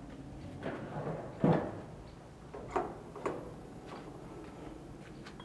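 Stainless steel gas grill lid being lifted open, with a few metallic clunks and knocks; the loudest comes about one and a half seconds in.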